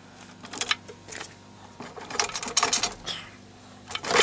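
Metal hand tools and small engine parts clinking and rattling in short bursts of clicks, the busiest burst about two seconds in, while parts around a van's carburetor are worked loose.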